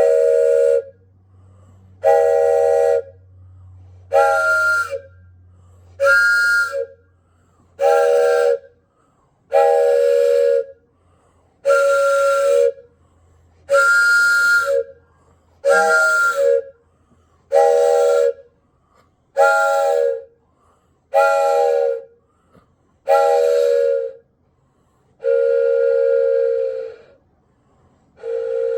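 Wooden train whistle blown in about fourteen short blasts, roughly one every two seconds. Each blast sounds several notes at once, like a steam-train whistle chord. Near the end comes one longer blast.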